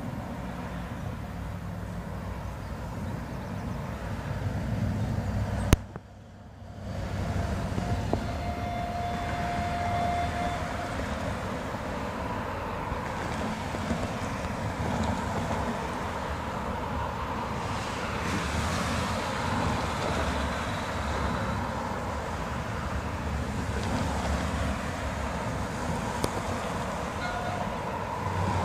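Outdoor ambience of wind rumbling on the microphone over distant road traffic, steady throughout. A sharp click comes about six seconds in and is followed by a brief dip in level.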